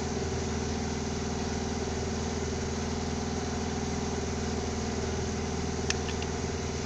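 An engine running steadily at idle, a constant hum that does not change. A single sharp click comes about six seconds in.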